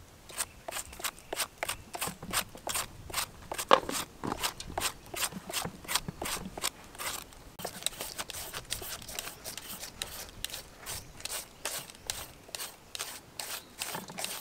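Hand julienne peelers scraping through raw vegetables such as carrot, in quick repeated rasping strokes, several a second, from more than one peeler at once.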